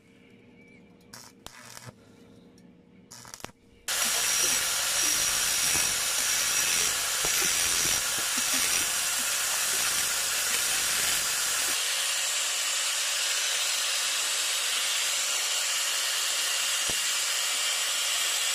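A few faint clicks, then an angle grinder with a flap disc starts suddenly about four seconds in and runs steadily against steel, grinding a weld bead flush.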